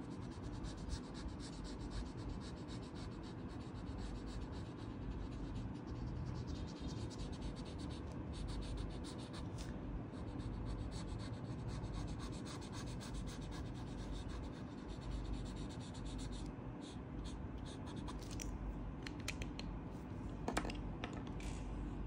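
Felt-tip marker scratching rapidly back and forth across paper, colouring in an area. The strokes thin out near the end into a few separate taps.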